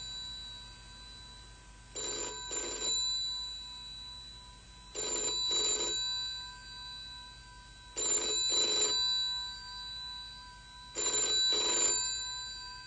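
Old rotary dial telephone bell ringing in double rings, four times, about every three seconds, each ring a quick pair: the British 'ring-ring' cadence of an incoming call that goes unanswered.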